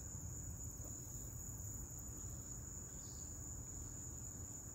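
Steady, unbroken high-pitched insect trill from an insect singing, over a low rumble.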